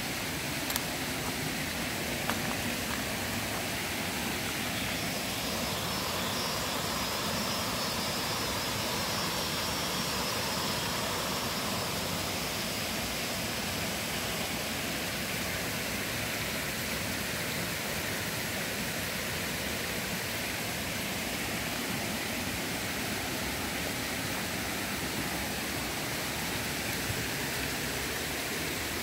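Steady rushing of a shallow forest stream running beside the trail. A fainter high buzz rises over it for several seconds in the first half.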